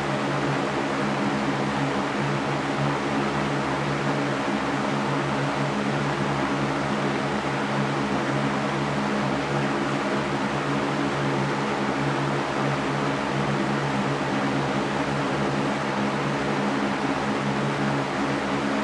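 Electric fan running steadily: an even rush of moving air over a low hum from the motor and blades.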